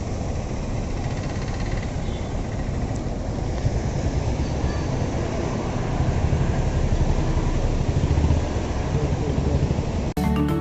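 Steady low rumbling road and wind noise from a moving vehicle. Music cuts in abruptly near the end.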